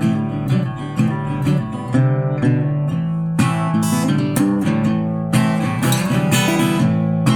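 Acoustic guitar strumming chords in an instrumental passage of a song, with a steady rhythm of strokes.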